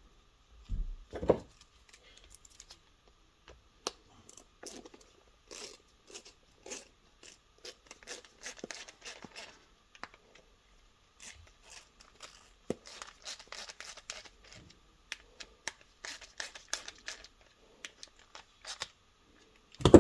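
Hands working with small parts and tools at a bench: scattered clicks, scrapes and rustling, with a heavier knock about a second in and another at the end.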